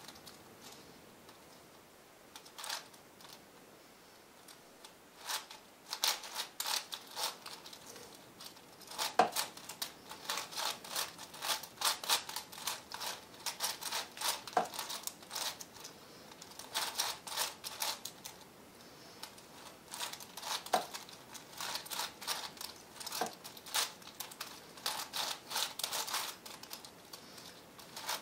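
V-Cube 7 puzzle cube being turned by hand: runs of rapid plastic clicking as its layers are twisted, with a few louder single clacks. The clicking stops for a few seconds near the start, then comes in quick bursts.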